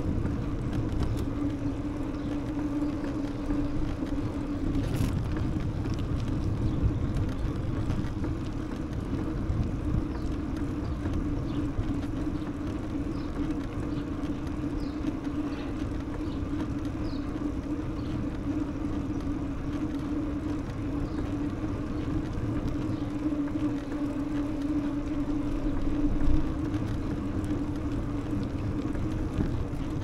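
Steady ride-along noise of a bicycle rolling through city streets: a continuous low rumble with a steady hum, and a brief louder bump about 26 seconds in.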